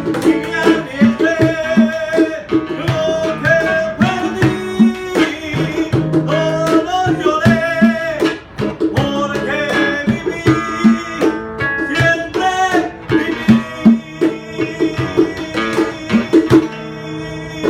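Live acoustic band: two acoustic guitars strumming and picking, a cajón keeping the beat, and a male lead voice singing.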